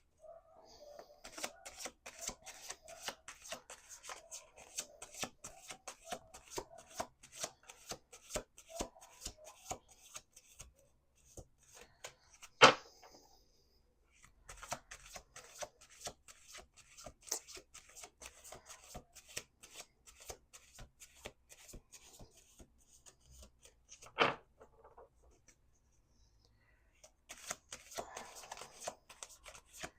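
A tarot deck being shuffled by hand: long runs of rapid card clicking, broken by short pauses. Two sharp knocks stand out, one near the middle, which is the loudest sound, and one about three-quarters of the way through.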